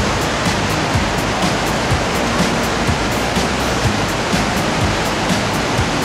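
Rhine Falls waterfall: a steady, loud rush of heavy falling water, with quiet background music and a light regular beat under it.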